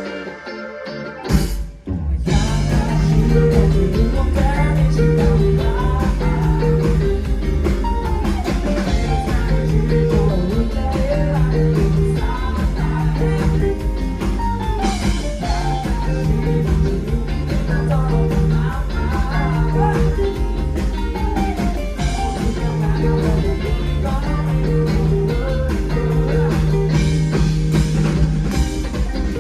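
Live rock band playing a song, with drums, bass, electric guitar and singing. The band drops out briefly right at the start, with one hit, and comes back in full about two seconds in.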